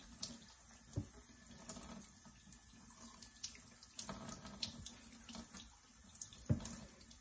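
Faint water running in a sink while raw pork chitterlings are cleaned by hand, with a few small knocks and clicks.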